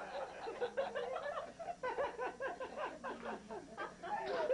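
Several people laughing and chuckling together, in short repeated bursts of voice.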